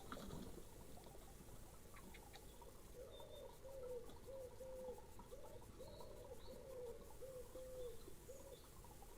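A pigeon cooing: a run of about ten low, soft coos in two phrases, starting about three seconds in, with a few faint high chirps from small birds.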